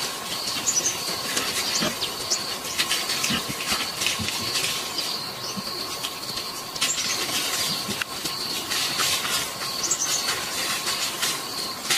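A broom sweeping concrete steps and a path: scratchy swishing strokes at an irregular pace, roughly one or two a second. A steady high thin tone runs behind it, and a bird chirps briefly a few times.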